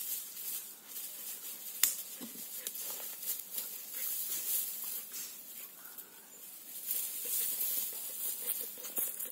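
Rustling in dry grass and fallen leaves, with scattered small crackles and one sharp click about two seconds in.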